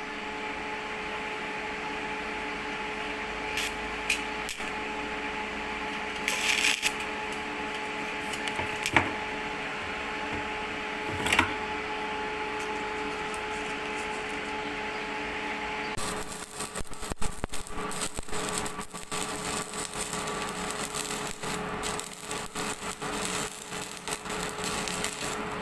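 Electric arc welding on mild-steel square tube: a steady hum with a few sharp knocks, then, about two-thirds of the way through, the sound changes suddenly to a dense, irregular crackling that continues to the end.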